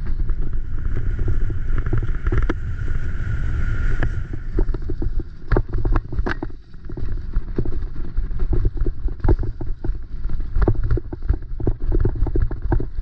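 Graziella bike clattering and bumping at speed down a rough, muddy dirt trail: a heavy low rumble of wind and ground with constant irregular knocks and rattles from the bike, and a steady high squeal for about three seconds near the start.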